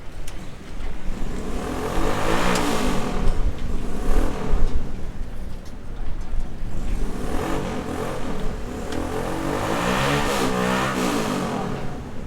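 Two motor vehicles passing close by one after the other. Each engine sound swells up and then fades, shifting in pitch as it goes past.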